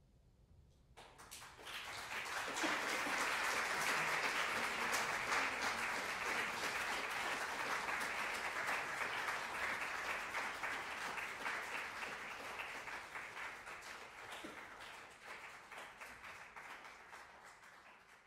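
Audience applauding, starting about a second in, swelling quickly and then slowly dying away near the end.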